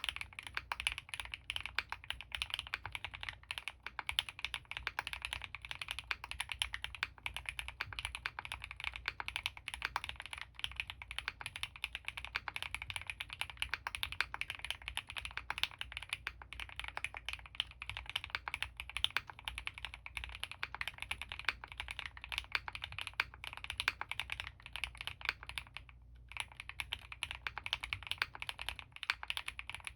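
Fast, continuous typing on an Owlab Mr.Suit custom mechanical keyboard. It has Gateron CJ linear switches lubed with Krytox 205g0, an Ultem (PEI) plate and GMK doubleshot ABS keycaps. The keystrokes come densely one after another, with a brief pause in the typing about 26 seconds in.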